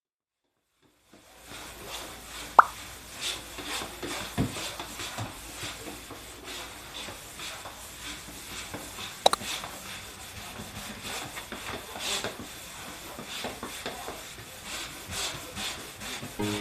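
Quiet handling noises: soft rustling and small knocks, with a sharp click a few seconds in and a quick double click about halfway through.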